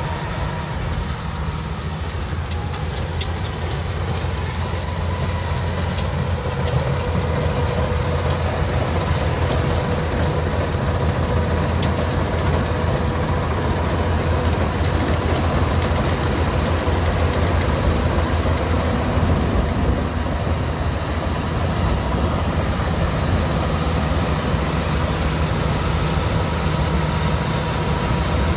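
Yanmar AW82V combine harvester's diesel engine running steadily under load while harvesting rice: a constant low drone with a faint steady whine above it and scattered light clicks.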